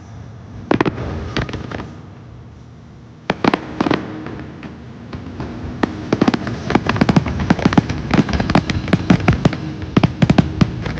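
Aerial fireworks exploding: a few separate bangs, then about halfway in a rapid, dense volley of bursts that grows louder.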